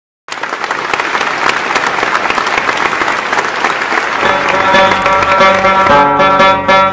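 Audience clapping steadily. About four seconds in, a plucked string instrument starts playing folk music under the applause, and it grows louder near the end.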